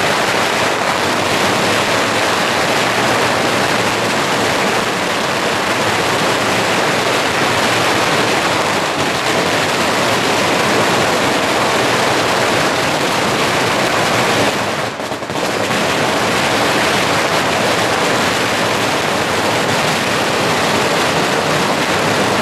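Dense, unbroken crackle of a massive firecracker barrage, long strings of firecrackers going off together in the street. It briefly eases about fifteen seconds in, then comes back at full strength.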